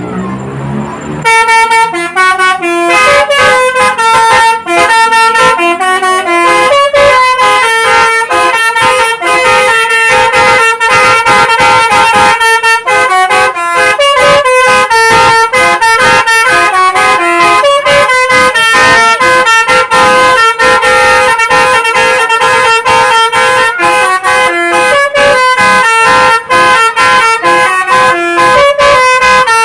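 Bus telolet horn, a Basuri multi-tone horn, playing a fast melody of short, bright horn notes. It starts about a second in and keeps going without a pause.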